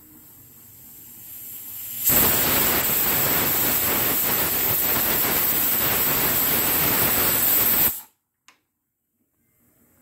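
Pigeon aluminium pressure cooker whistling: the weighted valve lifts and steam vents as a hiss that swells over about two seconds, holds loud and steady, then stops abruptly. It is the sign of pressure having built up inside the cooker on the burner.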